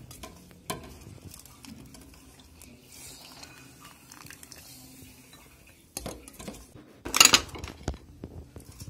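Faint wet handling as soaked soya chunks are squeezed by hand over a steel bowl of water, with a small knock early and clinks of dishes about six seconds in. The loudest sound is a short clatter of bowls and plate just after seven seconds.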